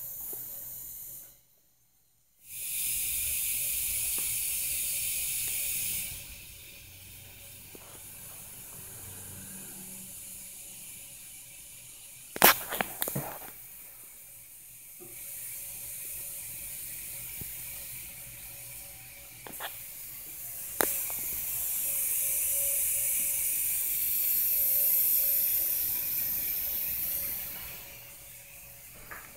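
Air hissing out of a spring-loaded PRV hatch as it relieves air pressure. The hiss swells and fades in several spells, louder near the start and again in the last third, with a few sharp clicks around halfway through.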